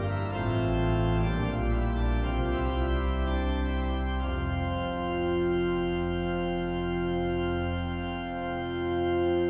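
Organ music playing slow, sustained chords; the chords change for the first few seconds, then one chord is held from about halfway through.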